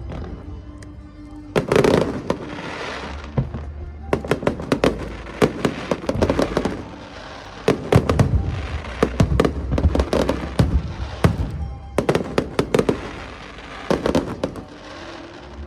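Aerial fireworks bursting in repeated volleys, each a cluster of sharp cracks followed by crackling, coming every two to three seconds.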